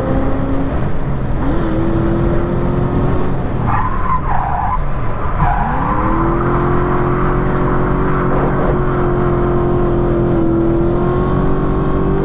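Toyota 1UZ V8 in a Lexus IS200 drift car running hard on track, with tyres squealing as it slides. The revs drop about three seconds in, climb back about two seconds later and then hold high and steady.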